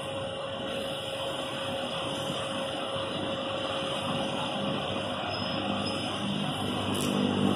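Diesel engine of a three-axle double-decker coach running as the coach drives slowly in and turns, growing louder near the end as it comes closer.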